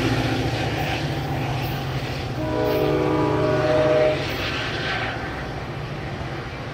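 Diesel locomotive engine of a departing Coaster commuter train, working steadily and fading as the train pulls away. About two and a half seconds in, a train horn sounds one blast of under two seconds.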